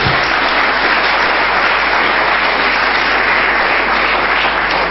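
Audience applauding, a steady unbroken clapping.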